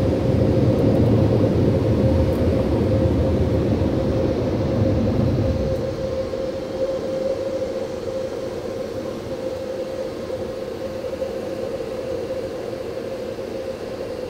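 Ryko SoftGloss Maxx 5 car wash machinery running, heard from inside a closed vehicle cab: a steady motor whine over a low rumble. The rumble drops away about six seconds in.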